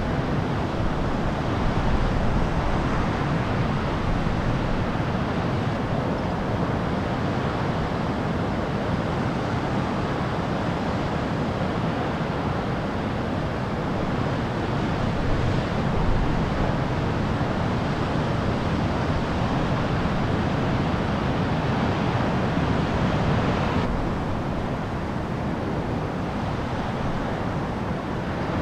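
Large ocean waves breaking, a steady wash of heavy surf noise with wind buffeting the microphone. The sound turns a little duller and quieter near the end.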